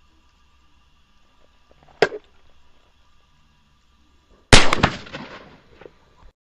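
A sharp crack about two seconds in, then a much louder handgun shot about four and a half seconds in that rings out and dies away over a second or so.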